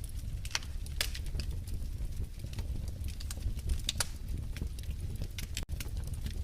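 Wood fire in a fireplace crackling: irregular sharp pops and snaps over a steady low rumble of the flames, a few pops standing out louder than the rest.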